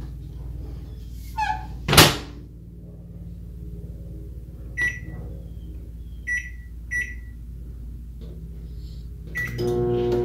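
Microwave oven door shut with a knock, then four short keypad beeps as buttons are pressed, and near the end the oven starts running with a steady hum.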